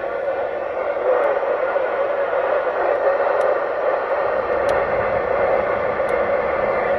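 Uniden Grant XL CB radio speaker giving a steady hiss of static while receiving with no clear signal, with a faint steady tone under the noise.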